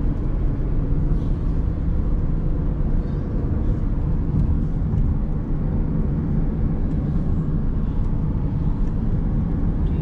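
Steady low rumble of a car driving at road speed, heard from inside the cabin: tyre and engine noise.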